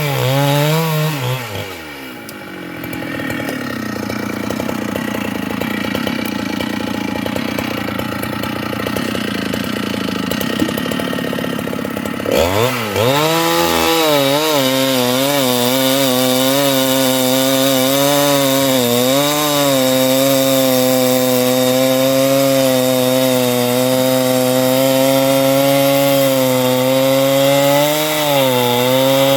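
Chainsaw engine at high revs drops to idle about two seconds in and idles for some ten seconds. It then revs sharply back to full throttle about twelve seconds in and holds there, the pitch wavering and dipping slightly as the chain cuts wood.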